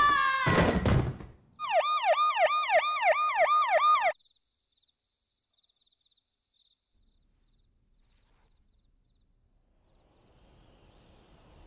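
A crash and clatter of breaking boards in the first second, then an emergency-vehicle siren wailing in fast repeated downward sweeps, about three a second, for some two and a half seconds before cutting off abruptly. After that only a faint hiss of night ambience.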